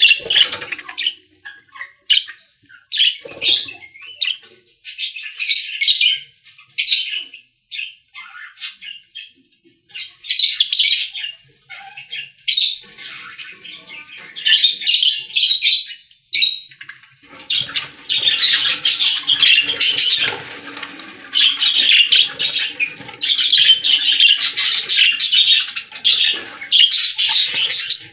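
Baby birds in a bird house giving harsh squawking and chirping calls, at first in scattered short bursts, then swelling into an almost unbroken chorus over the last ten seconds.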